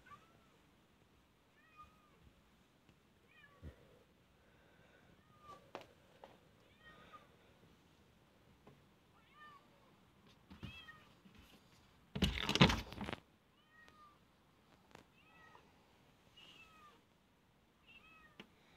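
A tabby cat meowing over and over, short meows about one a second, asking to be let into the house. About two-thirds of the way through there is a loud noise lasting about a second.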